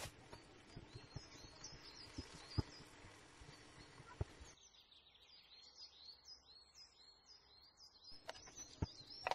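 A small bird chirping over and over in short, high, falling notes, faint in the background. A few sharp clicks and taps cut in, the loudest a little over halfway through the first half, and a soft hiss drops away about halfway through.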